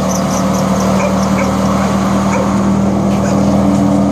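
Wood chipper shredder running up after being started: a loud, steady machine hum that grows slowly louder, with a second, higher hum joining near the end.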